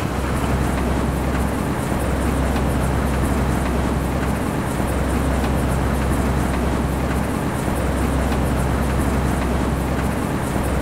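Rotary railway snowplow running and blowing snow: a steady, heavy machine drone with a strong low hum.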